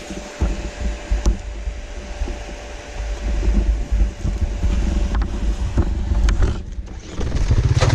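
Uneven low rumbling and scattered knocks. About seven seconds in, a dirt-bike engine comes in loud and steady.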